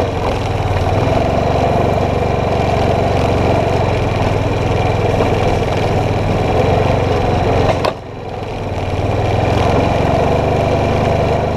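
Four-wheeler (ATV) engine running steadily, towing a disc harrow over the field. A sharp click about eight seconds in, after which the sound drops and builds back up.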